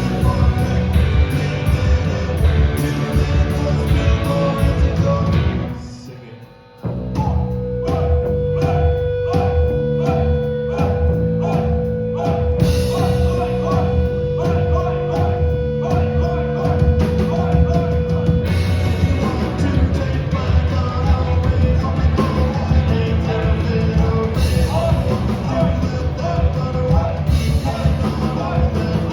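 Live punk rock band playing loud: electric guitars, bass and drums with a singer. The music drops out briefly about six seconds in, then the band comes back in.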